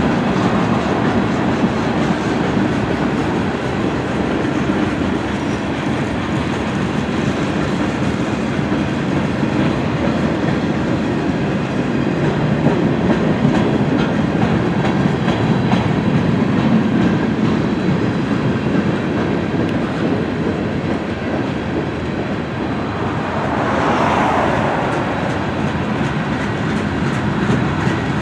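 Freight train cars rolling past: a steady rumble of steel wheels on rail with quick, regular clicks over the rail joints. A brief swell rises and falls near the end.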